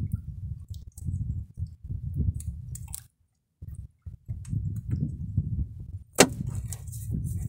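A fisherman unhooking a small fish by hand in a wooden boat: hands, line and hook make small clicks over a low rumble, and a sharp knock about six seconds in as the fish comes off and drops.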